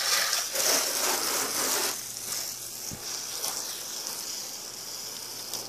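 Water spraying hard from a hose-end foam gun with its soap canister removed, hissing steadily as it hits the car's hood and windshield. It is louder for about the first two seconds, then drops to a softer hiss.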